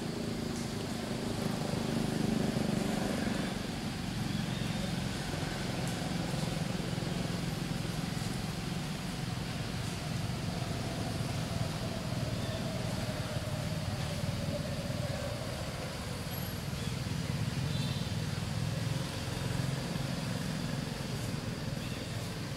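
Steady low rumble of a motor engine running, slightly louder about two seconds in and again near the end.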